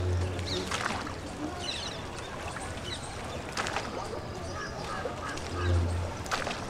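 Riverside ambience at a bathing ghat: water splashing from bathers and a rowed wooden boat, with three sharp splashes and a few short distant calls over a steady outdoor noise.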